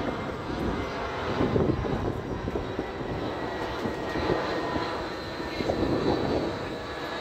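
Jet noise from an Airbus A320 airliner passing low overhead with its landing gear down on approach: a steady rumble with a faint high whine.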